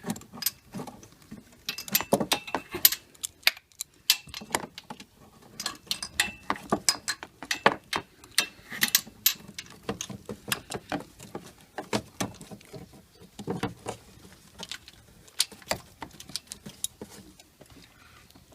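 A 3/8-inch ratchet on a spark plug socket and extension, clicking and clattering irregularly as it is worked back and forth to break a spark plug loose.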